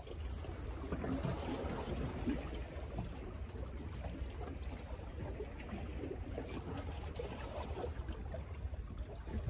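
Small sea waves lapping and splashing against shoreline rocks, an irregular watery trickling, over a steady low rumble.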